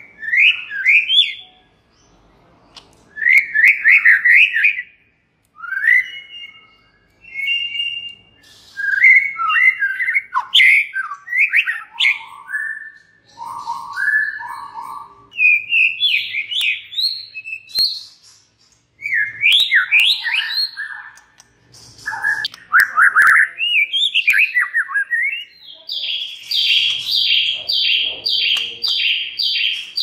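White-rumped shama (murai batu) singing: varied phrases of quick gliding notes broken by short pauses, with a few sharp clicks. Near the end it runs into an evenly repeated series of high notes, two to three a second.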